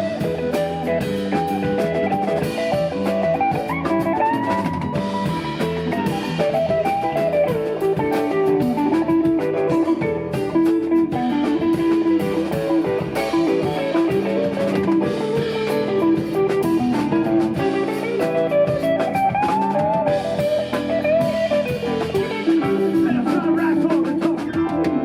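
Live blues-rock band playing an instrumental passage: a lead guitar line with bending notes over drums and bass.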